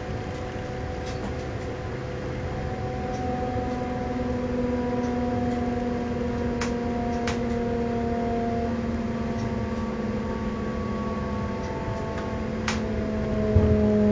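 A passenger train running along the rails, heard from inside its front end: a rumble with a whine of several tones that slowly falls in pitch. A few sharp clicks come in the middle, and heavier knocks near the end.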